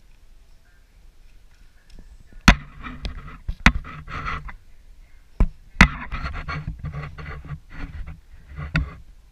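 Pen scratching on notebook paper in quick strokes, with a few sharp clicks and knocks of handling in between.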